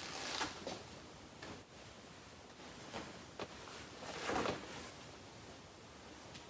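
Faint rustling of a garment's fabric being handled, with a few soft swells, the strongest about four seconds in.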